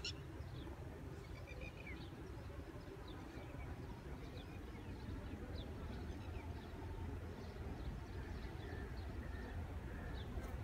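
Open-air ambience: scattered short bird chirps over a faint, steady low rumble that grows slightly louder toward the end.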